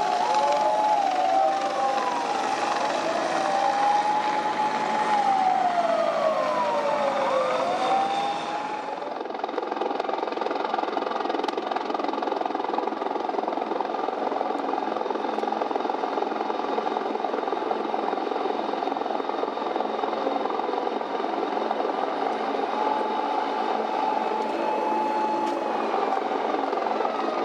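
Several emergency vehicle sirens wailing together, their pitch sliding up and down and falling as vehicles pass, cutting off suddenly about nine seconds in. After that, a steady drone of engines with a helicopter overhead, and sirens sliding again faintly near the end.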